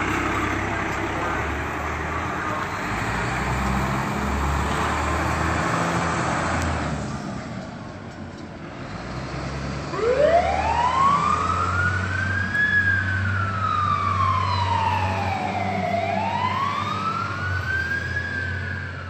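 Fire engine pulling away with a broad engine and road noise that fades. About ten seconds in its siren starts, winding up to a high wail, then falling slowly and rising again in a slow rise-and-fall wail.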